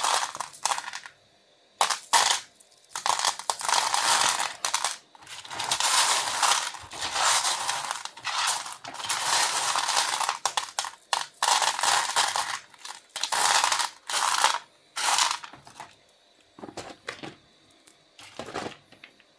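Pieces of rough opal and crystals clinking and rattling together as they are handled, in long runs of rattling. The rattling thins to a few separate clicks over the last few seconds.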